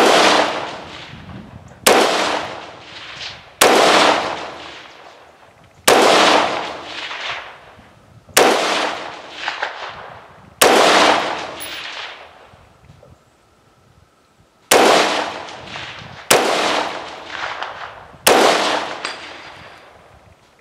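Nine single shots from an AR-15-style rifle, fired every two seconds or so with a longer pause midway; each sharp crack echoes away over a second or more.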